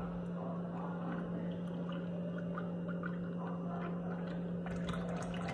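Cold milk pouring from a paperboard carton into a mug, over a steady low hum.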